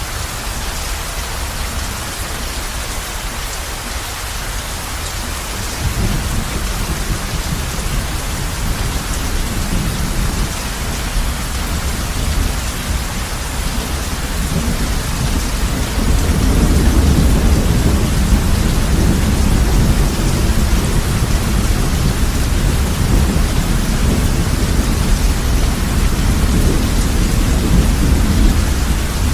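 Heavy rain falling on a roof in a steady hiss, with a low rumble of thunder that comes in about six seconds in and grows louder about halfway through.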